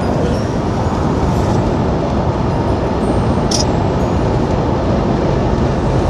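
Moving vehicle heard from inside: a steady rumble of road and wind noise. A brief high click about three and a half seconds in.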